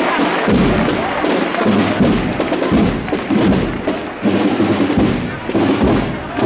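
Uniformed street band of brass and drums playing, with a low drum beat and sharp percussive hits cutting through.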